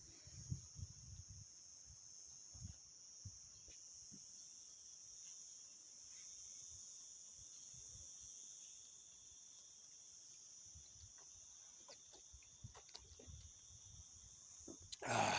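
Crickets chirring steadily in a continuous high-pitched chorus, with scattered faint low thumps and a brief louder sound near the end.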